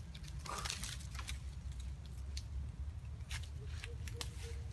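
Scattered clicks and rustles close to the microphone over a steady low rumble, with a faint repeated tone near the end.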